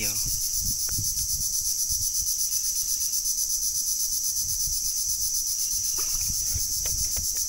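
A steady, high-pitched insect chorus with a fast, even pulse, with a few faint low knocks and thumps from handling in the boat.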